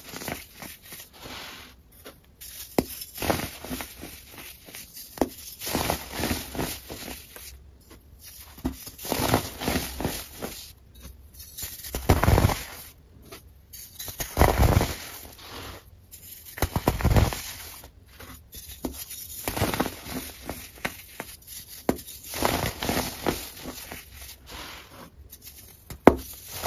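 Hands crushing pressed, dyed baking-soda shapes: dry crunching and powdery crumbling in repeated bursts, three of them deeper and louder around the middle.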